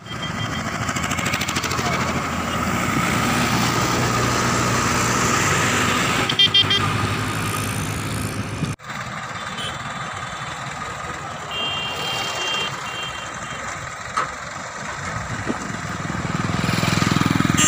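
Engines of heavy road vehicles running as they pass, with a short horn blast about six and a half seconds in. After a sudden cut the engine sound is quieter, with a brief high beep or horn near the middle.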